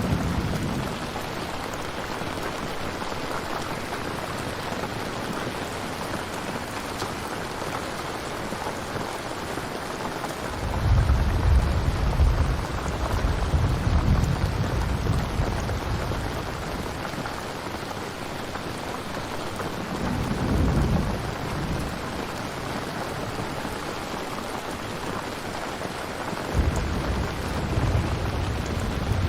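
Steady rain with rolls of thunder: a long low rumble about ten seconds in, a shorter one about twenty seconds in, and another starting near the end.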